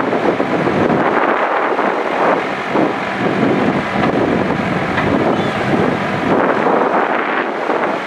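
ACE backhoe loader's diesel engine running hard under load, with its hydraulics working as the backhoe digs and dumps soil. It makes a dense, steady machine noise with no pauses.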